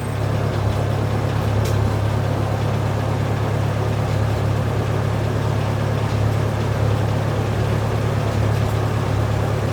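An engine running steadily at a constant speed, with a deep, even hum.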